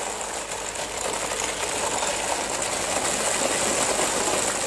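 Hundreds of plastic ping pong balls pouring from a sack into a plastic basin and spilling over onto the ground: a steady, dense rattle of many small hollow balls hitting one another.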